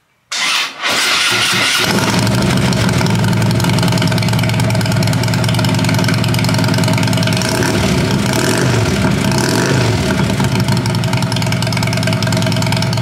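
A 2015 Harley-Davidson Street Glide's Twin Cam 103 V-twin is cranked on the electric starter and catches about a second and a half in, then runs at idle, with its pitch rising and falling a couple of times around eight to ten seconds in as it is revved briefly. It breathes through the stock catalytic-converter header and S&S slip-on mufflers and carries a performance cam.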